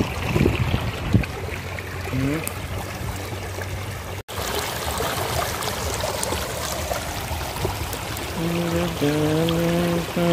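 Muddy rainwater runoff rushing over rocks and soil into a pond: a steady churning rush of flowing water, with a brief cut-out a little before halfway.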